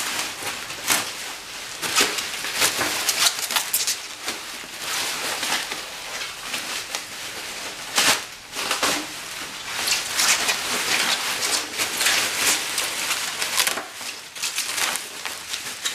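Bubble wrap being pulled and unwrapped by hand, rustling and crinkling with many short, sharp crackles.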